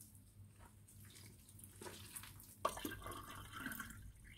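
Cinnamon water poured from a glass jug into a glass mug: a liquid trickle that starts suddenly about two and a half seconds in and runs for about a second, after a few faint sounds of hands working flour.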